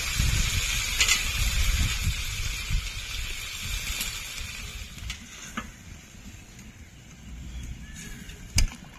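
Water poured in a steady stream into a wok of simmering chicken curry, splashing into the gravy for about the first five seconds before dying away. A sharp knock near the end as a spatula stirs in the wok.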